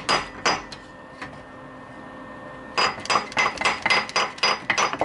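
Hammer tapping on a steel washer welded to a broken head bolt in an aluminium cylinder head, short ringing metal clinks: a couple of taps near the start, then a quick run of about a dozen taps, some five a second, from about three seconds in. The taps send vibration into the seized bolt to help loosen it.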